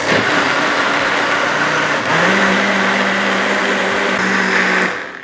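Personal blender motor running steadily, puréeing boiled pumpkin chunks with their cooking water, then cutting off near the end.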